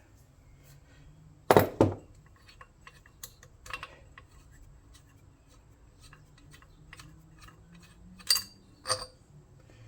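Metal hand tools clinking and knocking against lawnmower engine parts while the starter cup is worked off: a loud knock about a second and a half in, a few lighter clicks, and two ringing metallic clinks near the end.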